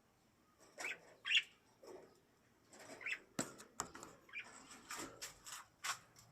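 Small cage birds chirping in short, scattered calls, with several sharp clicks and taps in the second half.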